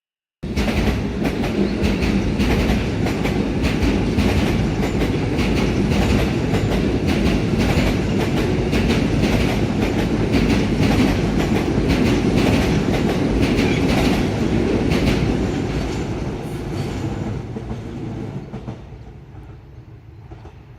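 Electric passenger train passing close by, its wheels clicking steadily over the rail joints, then fading away over the last few seconds.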